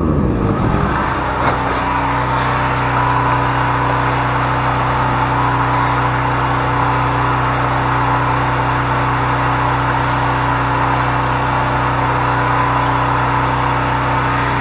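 13-horsepower high-pressure sewer jetter's engine running steadily, with the hiss of water jetting. Its pitch drops in the first second or two, then holds even.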